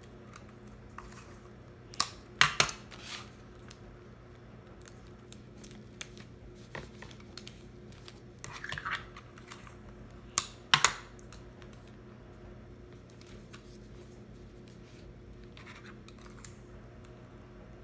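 Clear adhesive tape pulled from a small plastic tape dispenser and torn off, in a few short sharp rips about two to three seconds in and again about ten and a half seconds in, with light rustling of folded origami paper between.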